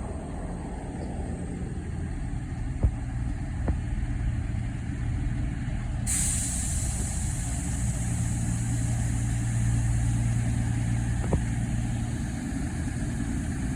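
CrossCountry Class 221 Voyager diesel-electric unit standing at the platform with its diesel engines running, a steady low hum. About six seconds in, a loud hiss of air starts suddenly and keeps going.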